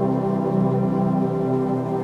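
Ambient music: a slow, sustained drone of many held tones.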